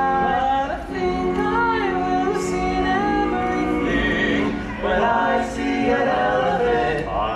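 Male barbershop quartet singing a cappella in close four-part harmony, holding chords and moving from one to the next.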